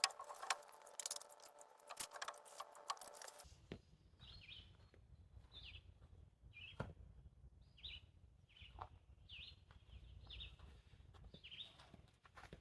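Rapid clicking over a steady hum for the first few seconds, then a cut to a bird chirping over and over in short calls against a faint low outdoor rumble, with a few light taps.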